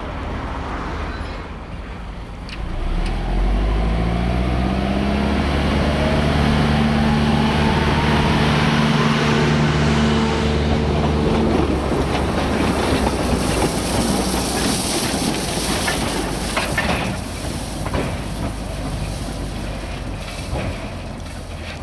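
Narrow-gauge diesel locomotive engine revving up as the train moves off, holding steady revs for several seconds and then easing off about halfway through. After that come the rattle and rumble of the moving works train with a hiss.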